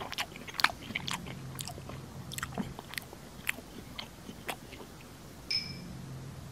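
Close-miked mouth eating sounds: wet clicks and crunchy bites, several to the second and irregular. A brief high squeak about five and a half seconds in.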